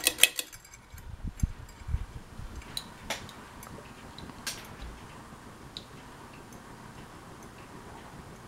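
Kenmore Victorian-copy ceiling fan running on medium speed: a faint steady hum, with a quick run of clicks at the very start and scattered light ticks and soft thumps over the first few seconds.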